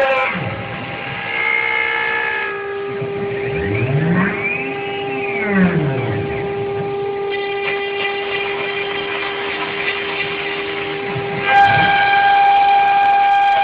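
CNC router cutting foam: a steady high whine from the spindle, with the drive motors' pitch rising and falling as the head speeds up and slows down in the middle, and a fuller set of tones returning near the end.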